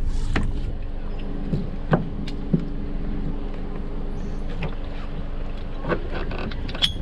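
Scattered sharp knocks and clicks, about half a dozen, as a line is worked against a Hobie Cat 16 catamaran's hull, over a steady low background of wind and water noise.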